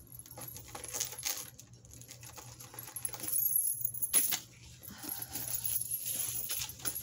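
Metal costume jewelry clinking and jingling as pieces are handled and pulled from the pile, with scattered sharp clicks, busiest about one second in and again between three and four and a half seconds in.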